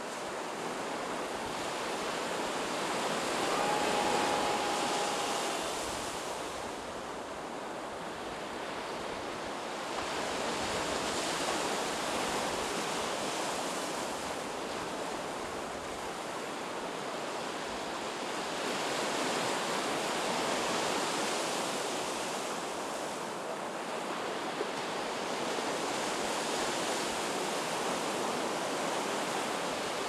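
Sea surf breaking on a beach, a steady wash of waves that swells and eases every several seconds.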